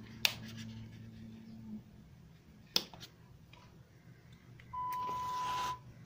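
Small piezo buzzer in a homemade fire-alarm circuit powered by a 9-volt battery, sounding one steady beep for about a second near the end. Two sharp clicks come before it.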